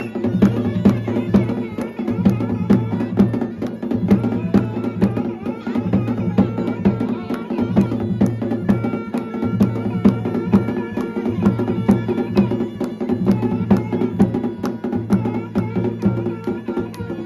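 Pahadi dhol drumming in a steady, fast dance rhythm, with a melody carried over the beat.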